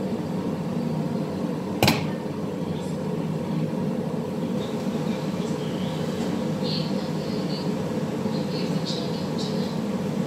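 Steady low hum of a kitchen appliance or fan running, with one sharp knock about two seconds in and light clinks of cookware and the oven door in the second half.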